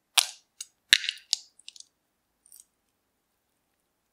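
Gold glitter glue being squeezed out of a cut-open mini rubber balloon into a glass bowl: a quick run of sharp clicks and crackles over the first two seconds or so, the loudest two about a second apart, then quiet.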